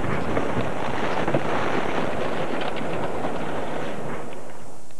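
Wind buffeting a camcorder microphone on a sailboat's deck, a steady rushing noise. It fades away just before the end.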